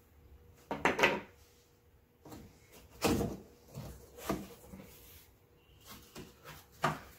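Cardboard box being opened by hand, its top flaps pulled up and folded back: several separate knocks and scrapes of cardboard, the loudest about a second in and about three seconds in.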